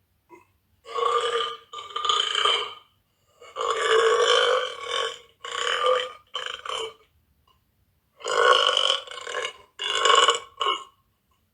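A girl burping loudly again and again: about eight belches in three bunches with short silent gaps between, the longest lasting over a second.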